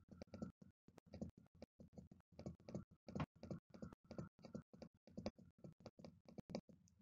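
Faint, rapid, irregular clicking, several clicks a second, that cuts off sharply at the very end.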